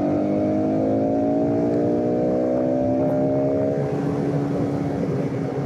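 Bajaj Pulsar RS200's single-cylinder engine pulling in gear from about 4000 rpm, its note rising steadily in pitch for about four seconds, then easing and blurring into road and wind noise near the end. A clean, knock-free pull from low revs.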